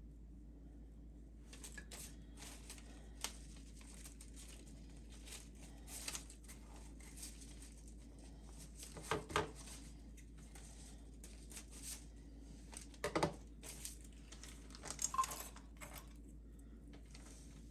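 Faint handling sounds: scattered light clicks and rustling, with a few louder short knocks about nine, thirteen and fifteen seconds in, over a steady low hum.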